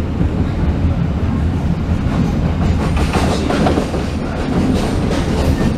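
Moving passenger train heard from inside the carriage: a steady low rumble from the running gear, with the wheels clicking over rail joints from about halfway through.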